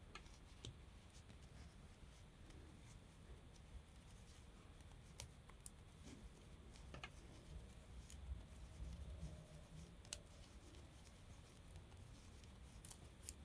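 Near silence with faint, scattered light clicks and ticks of wooden knitting needles as yarn is worked by hand.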